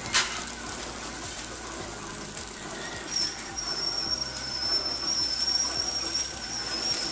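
Automatic cinnamon-stick packing machine running with a low hum, and a steady high-pitched whine that comes in about three seconds in.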